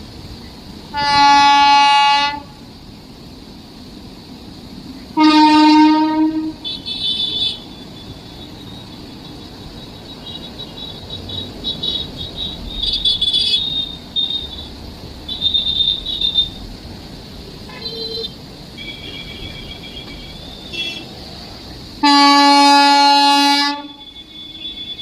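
Train horn sounding three loud blasts: one of about a second and a half near the start, a shorter one about five seconds in, and a longer one of about two seconds near the end, over the steady noise of a running train. Fainter high-pitched tones come and go between the blasts.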